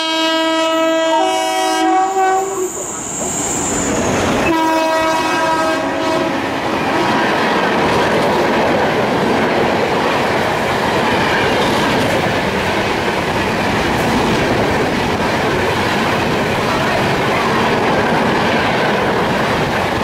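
WAP-7 electric locomotive's horn sounding in a long blast that stops about two seconds in, then a second shorter blast around four and a half seconds in. The AC Express coaches then pass at full speed with a steady rushing and clickety-clack of wheels on rail joints.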